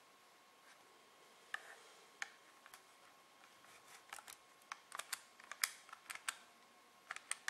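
Calculator keys being pressed: a few separate clicks at first, then a quicker run of key presses in the second half.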